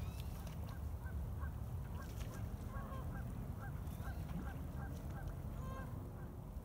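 Wild geese honking, many short calls in quick succession from a flock, over a steady low rumble.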